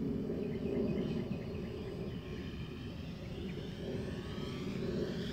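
Electric motor and propeller of a distant Durafly Curtiss P-40 foam RC warbird in flight: a faint whine over wind noise, rising in pitch toward the end as the plane comes closer. The motor sounds a little rough, which the pilot puts down to a ball bearing.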